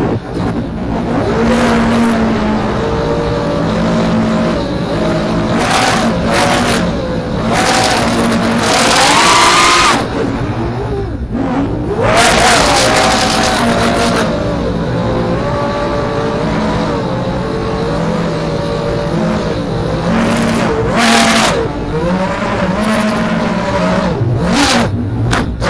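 FPV racing quadcopter's brushless motors and propellers whining, the pitch rising and falling again and again with the throttle, with several loud rushing bursts of air noise along the way.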